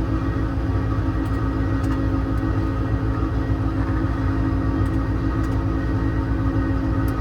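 Ford 6.7 Power Stroke V8 diesel running steadily, driving the truck-mounted IMT hydraulic air compressor: an even low pulsing with a steady whine over it.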